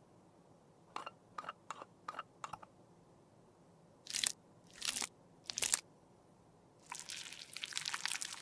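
Five light taps, then a small synthetic makeup brush scratching in three short strokes against cream concealer in a compact pan, and near the end a longer stretch of the brush bristles rubbing the cream across skin.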